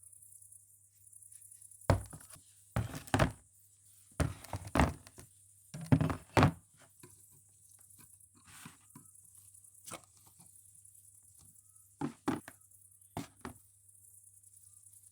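A series of sharp knocks and thuds of hard objects striking, in irregular clusters of two or three, most of them in the first half and a few more near the end.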